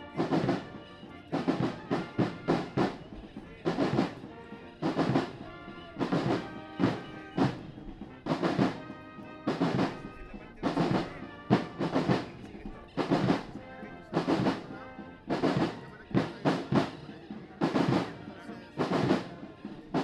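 Military marching drum corps playing a march cadence, snare and bass drums beating in a repeating pattern of rolls and accented strokes.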